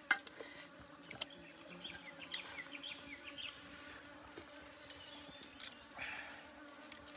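A honeybee buzzing steadily around the food, against a steady high insect drone, with a few sharp clicks and a short scrape of a spoon on a metal plate about six seconds in.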